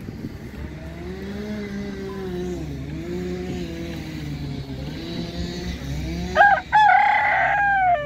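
A rooster crows loudly near the end, with a few short notes, a long held note, then falling notes. Before that, a low engine drone rises and falls slightly in pitch.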